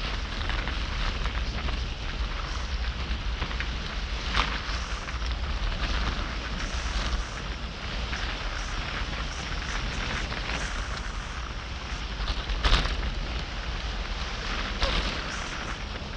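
Wind rushing over a helmet-mounted camera's microphone on a fast bicycle ride, with a steady low rumble and hiss from wind and road. A sharp knock comes about four seconds in, and a louder one just before thirteen seconds.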